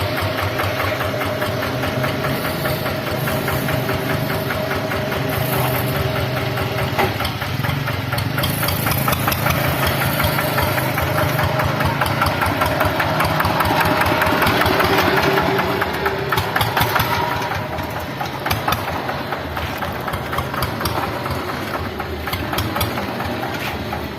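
Changfa single-cylinder diesel engine running under way with a rapid, even knock of firing strokes. It gets louder over the first half and eases off about two-thirds of the way in. The owner says the engine has begun to cough, its last overhaul being in 2016.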